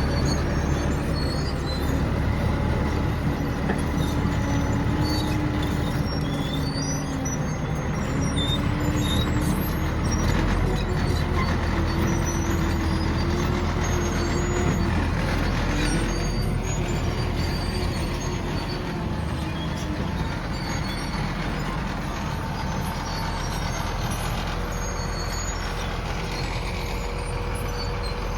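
A vehicle motor running steadily, with a whine that drifts slowly up and down in pitch.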